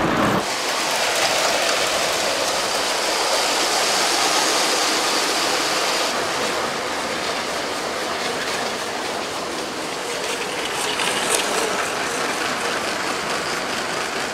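Motorised LEGO train running past close by on plastic LEGO track: a steady clattering rattle of plastic wheels and gearing over the track joints.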